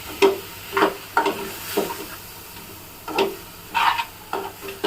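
Chicken pieces being stirred in a pan of hot oil: a spatula scrapes and knocks against the pan in about eight irregular strokes over a faint steady sizzle.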